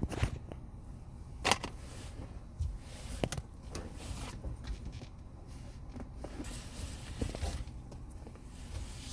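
Scattered clicks and knocks of hand tools and plastic trim during work in a car's dashboard, as the bolts behind the radio are being removed; the loudest knock comes about a second and a half in.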